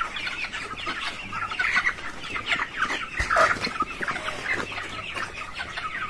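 A flock of 33-day-old broiler chickens clucking and peeping all at once: a steady jumble of many short, overlapping calls.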